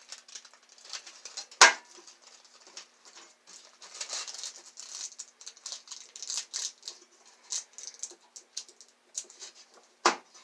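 Kapton tape being handled and pressed down inside an opened computer power supply case: irregular crinkling and light ticking, with two sharp clicks, one about two seconds in and one near the end.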